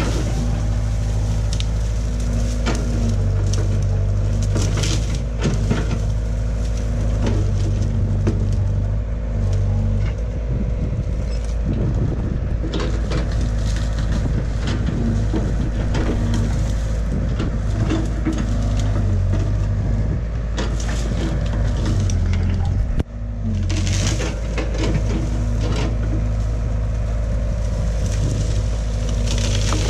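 Caterpillar excavator's diesel engine running steadily under load while its boom pushes into a tree, with branches cracking and snapping irregularly throughout.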